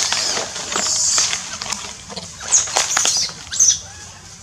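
Dry twigs and brush rustling and crackling, with a run of sharp snaps and bursts of rustle about two and a half to three and a half seconds in.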